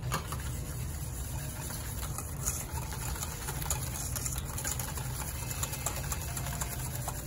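Balloon whisk beating eggs and sugar in a stainless steel bowl: a fast, continuous rattle of wires clicking and scraping against the metal, over a low steady hum.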